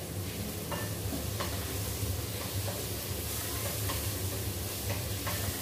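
Aromatics sizzling as they sauté in a stainless steel wok over a gas burner, stirred with a wooden spatula that taps the pan lightly a few times.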